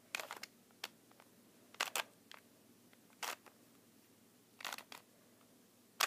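A 2x2 Rubik's cube being turned by hand, its plastic layers clacking as they rotate. There are about six short clacks, some in quick pairs, with pauses between turns.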